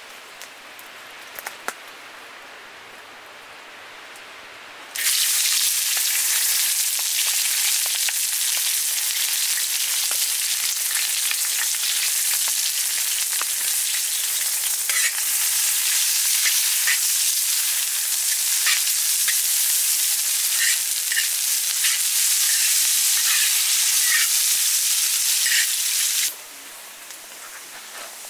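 Sliced onions frying in hot oil in a steel wok-shaped pan: a loud, even sizzle with scattered pops that starts suddenly about five seconds in, as the onions hit the oil, and drops back near the end. Before it, only the quieter hiss of the oil heating.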